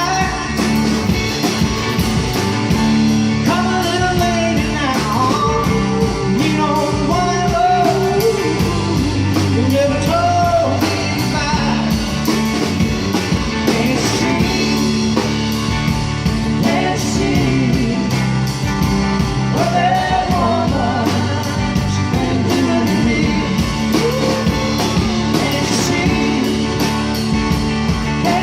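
Live band playing a song: a singer's voice over the band's instruments, with a steady beat throughout.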